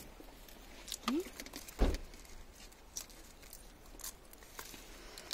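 Small scattered clicks and crackles of a hard-boiled black egg's shell being cracked and peeled by hand, with one dull knock about two seconds in.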